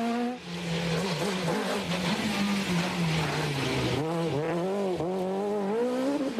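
Rally car engines revving hard, the pitch climbing and dropping again and again through gear changes and lifts. A hiss of tyres on a loose dirt road runs underneath.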